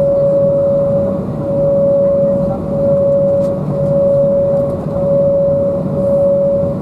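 Cabin noise of an Embraer 195 in flight: the airliner's General Electric CF34-10E turbofans and the airflow give a steady rush with one strong, steady whine on top of it.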